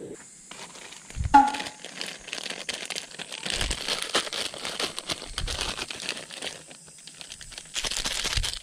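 Plastic soup sachet from an instant ramen packet being crinkled and torn open by hand: a long stretch of crackling rustle. A sharp knock about a second and a half in is the loudest sound.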